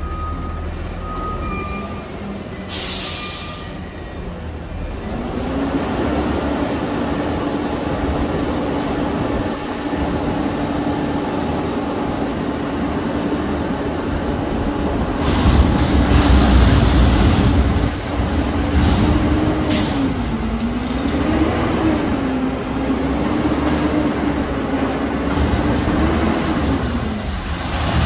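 Peterbilt front-loader garbage truck running, with a short air-brake hiss about three seconds in. Then a steady whine from the engine and hydraulics over a low rumble, growing louder midway and wavering up and down in pitch near the end.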